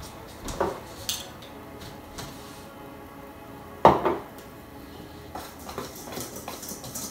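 Metal spoon clinking against a stainless steel mixing bowl: a few light clicks, one sharp knock about four seconds in, then soft repeated scraping and tapping as it stirs in the bowl.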